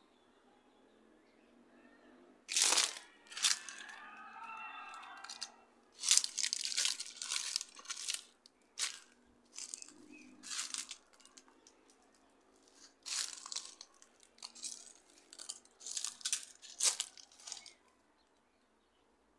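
Repeated crunching and rustling noises in irregular bunches, loudest in short sharp bursts, stopping near the end.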